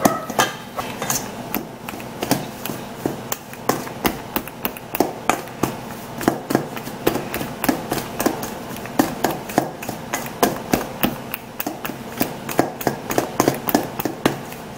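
Metal pastry blender clicking and scraping against a stainless steel mixing bowl while cutting cold butter into flour for biscuit dough: repeated sharp taps, a few a second, at an uneven pace.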